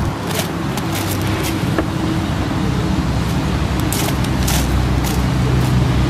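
Diesel engine of a 2011 International 4300 medium-duty truck idling steadily, with a scatter of crunching footsteps on gravel.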